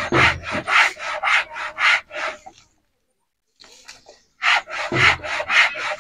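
A hand tool scraping soft wood in quick, even back-and-forth strokes, about four a second, as a wooden toy piece is shaped by hand. The strokes break off for about two seconds near the middle, then start again.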